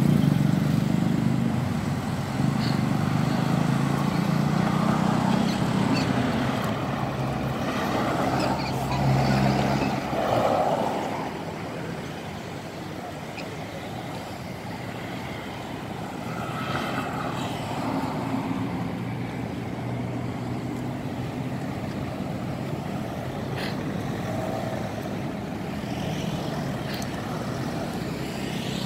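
Motor vehicle engine running close by, loudest for the first ten seconds and dropping away about ten seconds in, leaving steady, quieter road traffic noise.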